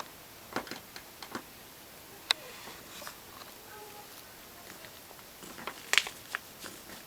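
Scattered soft clicks and patters of a cat's claws catching in a plush teddy bear as she kneads it. There is one sharp click a little past two seconds in and a small cluster of louder ones near the end.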